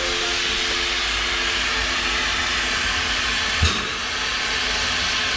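Steam train running: a steady hiss from the steam locomotive over the train's running noise, with one knock about three and a half seconds in.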